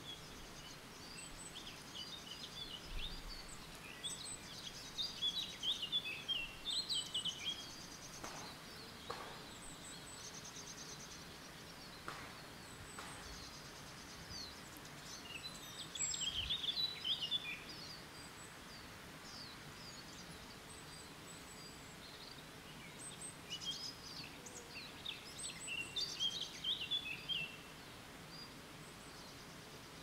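Wild songbirds singing in short phrases of quick high notes and trills, each a couple of seconds long, with thin high notes in between, over a faint steady background hiss.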